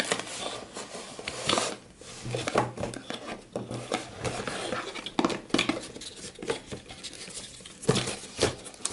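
Small cardboard box being opened by hand: flaps scraped and pried open and the inner tray worked out, with irregular rubbing, scraping and a few light taps.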